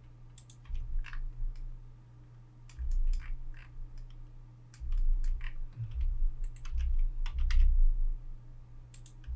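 Computer keyboard keys and mouse buttons clicking at irregular intervals as shortcuts are entered, with bouts of low thudding from the desk or microphone and a steady low hum underneath.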